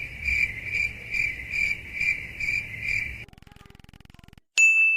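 Crickets chirping in an even rhythm, a little over two chirps a second, cutting off abruptly about three seconds in. A faint buzz follows, then a bright ding near the end.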